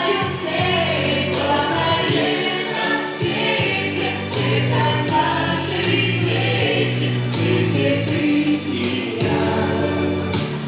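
Vocal ensemble singing a song in chorus over a backing track with held bass notes and a steady drum beat.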